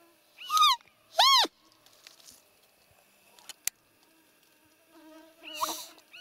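High, squeaky roe deer fiep calls, the contact squeak of the rutting season that draws a roe buck. There are two loud peeps close together near the start, each rising then falling in pitch, and a weaker one near the end, with a single sharp click in between.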